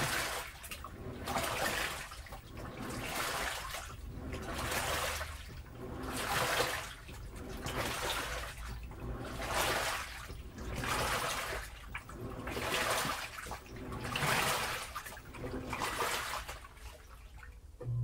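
Panasonic NA-FS160P3X top-loading washing machine agitating clothes in water during the rinse. A rhythmic swishing and sloshing swells about every one and a half to two seconds as the churning reverses direction.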